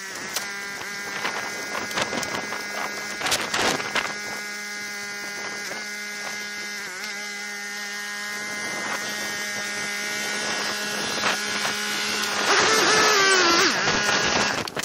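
Yanmar compact diesel tractor engine running at a steady pitch while the tractor is driven down loading ramps off a truck, with a few clanks. Near the end the engine gets louder and its pitch wavers as the tractor comes off the ramps.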